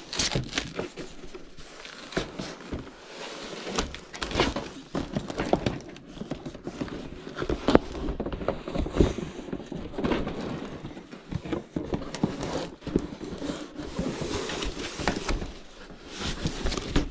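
Cardboard and plastic packaging being handled and pulled open by hand: irregular crinkling, rustling and tearing with scattered light knocks.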